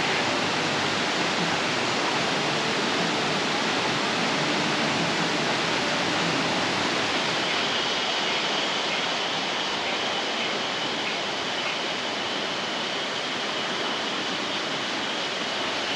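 Steady rush of a fast-flowing river, an even hiss of water with no break. A faint high steady tone joins about halfway through.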